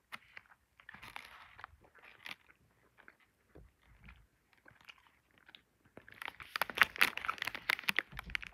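Close-up mouth noises of a child chewing a Sour Jacks sour candy: scattered wet clicks and crunches. The chewing gets louder and busier about two seconds before the end.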